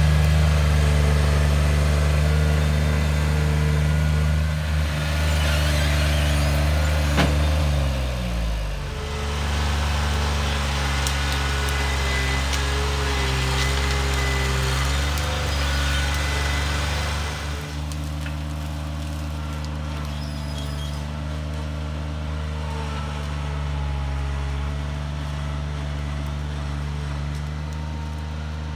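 John Deere 4475 skid steer's diesel engine running steadily as the loader clears brush and ground. The engine pitch dips briefly about eight seconds in, and the sound grows fainter as the machine works farther away.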